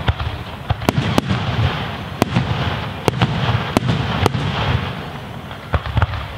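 Aerial firework shells bursting in quick succession: about a dozen sharp bangs, some in close pairs, over a continuous crackling rush and low rumble. They thin out near the end, with a last pair of bangs.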